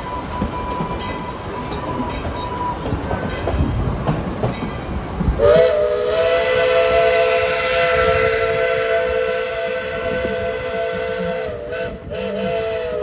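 Steam locomotive's chime whistle: one long blast of several tones sounding together, starting about five seconds in and held for about six seconds, then a short second blast near the end. Under it the passenger cars rumble and clatter over the rail joints.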